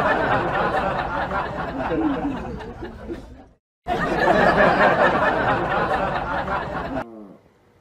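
Canned crowd laughter, a laugh-track sound effect. It cuts off briefly about halfway through, restarts in the same pattern and stops near the end.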